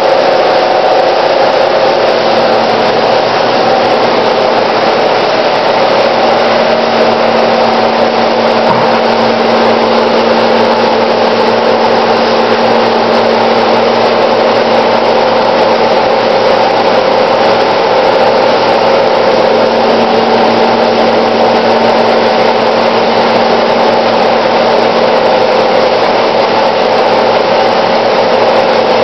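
Bank of froth flotation cells running, its impeller drives and air supply stirring and aerating copper ore pulp. The result is a loud, unchanging machine hum with a steady whine over a broad hiss.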